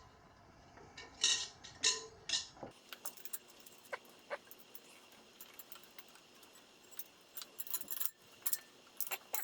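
Tire-work handling noises: a few sharp scrapes in the first couple of seconds, then scattered light metallic clicks and taps from a tube-fishing tool and tire tools against a motorcycle wheel rim, growing busier near the end.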